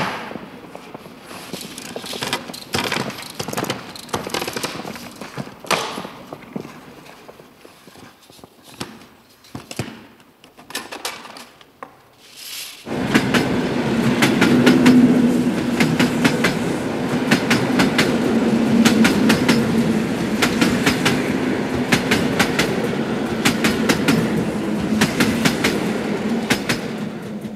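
Scattered knocks and clatter from a large wooden crate being wheeled on a two-wheeled hand truck. About 13 seconds in, a train starts suddenly and loudly: a steady rumble with a fast stream of wheel clacks on the rails.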